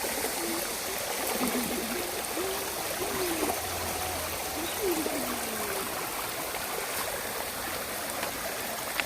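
Mountain stream flowing steadily over broad flat rocks, a continuous rush of water.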